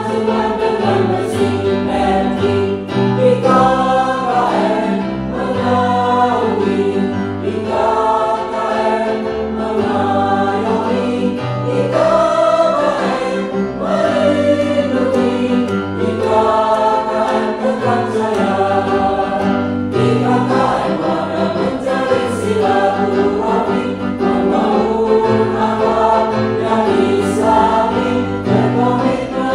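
Mixed choir of men and women singing together, accompanied by an electronic keyboard holding low sustained notes that change every second or two.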